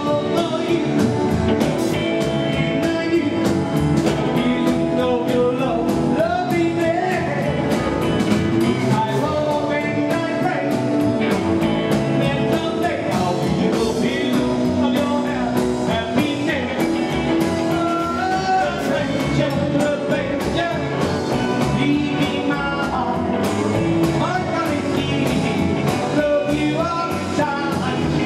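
Live rockabilly band playing: male singing over electric and acoustic guitars, upright double bass and drums, with a steady rhythm of sharp beats.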